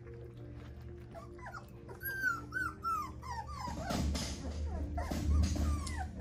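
Four-week-old miniature Bernedoodle puppies whimpering in a quick run of short high squeaks, then noisy lapping and smacking as they eat mash from a shared pan.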